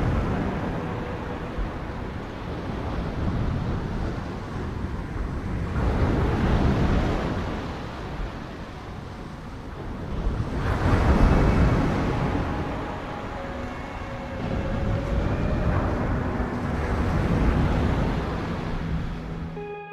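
Sea surf: waves rolling in and breaking on the shore, the rush swelling and ebbing about every five seconds. Faint steady tones join in over the last few seconds.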